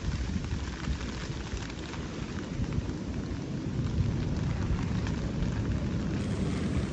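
Rain falling steadily in a thunderstorm, over a continuous low rumble.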